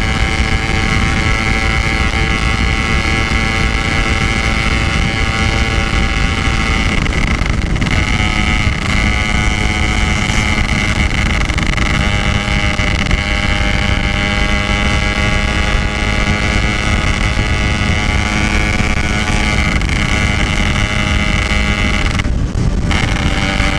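Yamaha RX-King single-cylinder two-stroke engine running at steady riding revs through a stock-style aftermarket exhaust, with wind on the microphone. The engine note breaks briefly twice, about seven seconds in and near the end.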